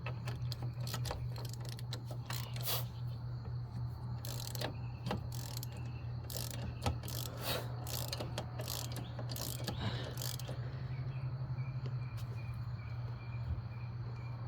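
Ratchet wrench clicking in irregular runs, with tools clinking, as the front brake bolts on a 2002 Chevy Malibu are turned, over a steady low hum.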